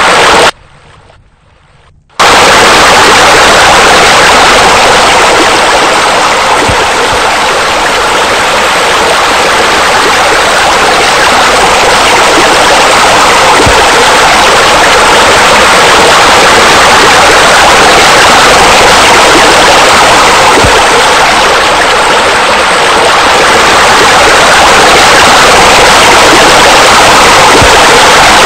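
Loud, steady rush of running water, as from pool deck jets and a spa spillover, starting about two seconds in after a brief burst of the same right at the start.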